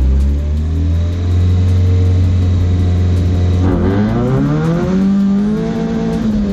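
Rally car engine running hard: a steady engine note, then about three and a half seconds in the pitch dips and climbs again as the car accelerates.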